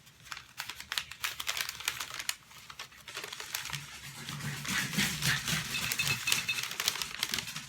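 Packaging crinkling and rustling as candles are handled and unwrapped, an irregular run of crackles.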